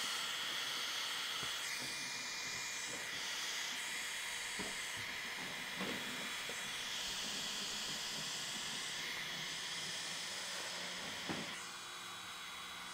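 Handheld electric heat gun running, its fan blowing a steady airy hiss of hot air onto vinyl wrap film. The tone shifts a little as the gun is moved, and it gets slightly quieter near the end.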